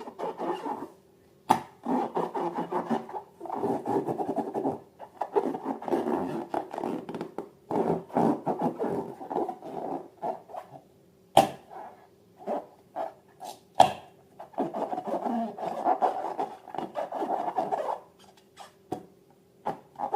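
Slime being squeezed and worked by hand: stretches of dense crackling and rubbing, broken by short pauses and a few sharp clicks, over a faint steady hum.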